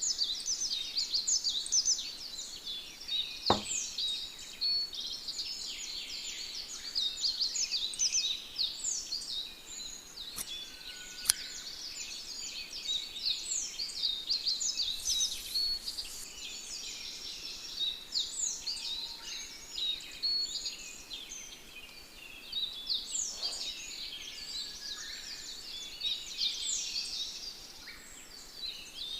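Dense chorus of small birds chirping, many short, quickly falling high notes overlapping without a break. A few isolated clicks stand out, one about three and a half seconds in and two around ten to eleven seconds in.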